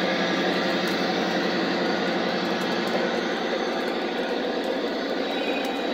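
Model train passenger cars rolling past on the track: a steady rumbling whir of small metal wheels on rail, easing slightly toward the end.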